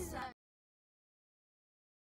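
Digital silence: a brief, faint tail of music cuts off abruptly a moment in, and nothing follows.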